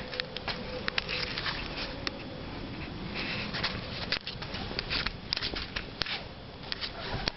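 A door being pushed open, with scattered sharp clicks and short rustles.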